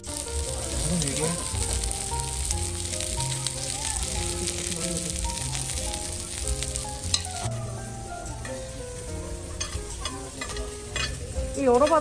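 Background music with held notes stepping in a slow melody over a steady bass, laid over a high hiss that cuts off about seven and a half seconds in; a few light clicks follow near the end.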